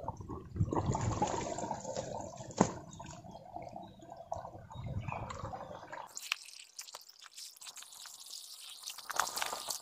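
Hands splashing and scooping in shallow muddy ditch water while mud and sticks are packed to mend a leaking earth dam, with one sharp knock about two and a half seconds in. From about six seconds the sound turns to a hissing rush of water with small splashes.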